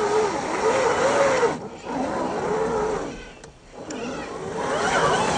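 Electric motor and gear whine of a 1/10-scale RC crawler truck, slowed to half speed so it sounds low and warbling, rising and falling in pitch with the throttle. It drops away twice briefly.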